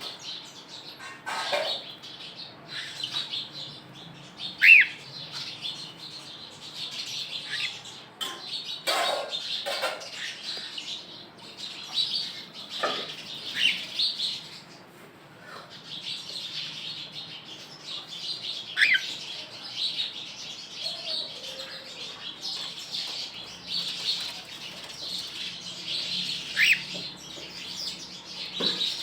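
Cockatiels chirping continuously, with a few louder, sharp whistled calls and several brief thumps or wing flutters.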